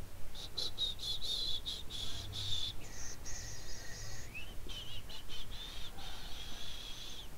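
A bird singing: a long, varied song of high trills and warbling notes, with a short rising whistle about four seconds in.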